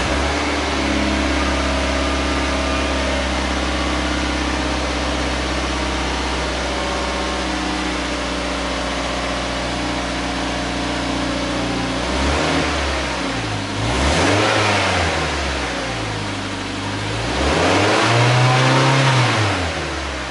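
Factory stock exhaust of a 2015 Mazda MX-5 Miata (NC) with its four-cylinder engine idling steadily. About twelve seconds in, the throttle is blipped three times, each rev rising and falling, the last the longest and highest.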